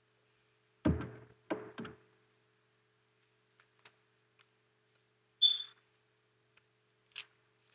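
Handling noise while sectioning hair for curling: a few dull knocks about a second in, then scattered light clicks. The loudest is a sharp click with a short high ring about five and a half seconds in, and a smaller click comes near the end.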